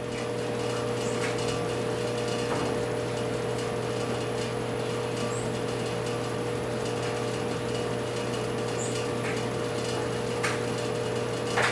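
A steady mechanical hum with a constant low drone and a higher tone, and a few faint clicks and knocks as aluminium hand injectors are handled and pressed into a soft-plastic tube mold.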